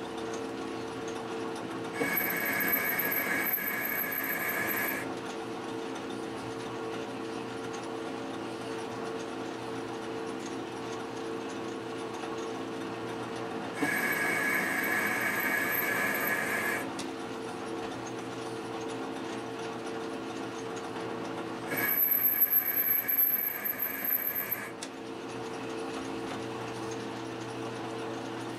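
Atlas metal lathe running with a steady motor and gear hum. Three times, for about three seconds each, a louder high-pitched whine joins it as the carriage makes a threading pass under the engaged lead screw.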